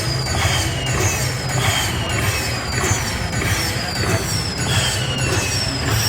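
Slot machine sound effects: short falling electronic tones repeating about once a second, over the steady low din of a casino floor.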